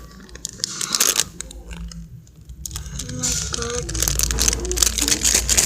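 Plastic packaging crinkling and tearing in irregular crackles as a squishy toy is unwrapped by hand.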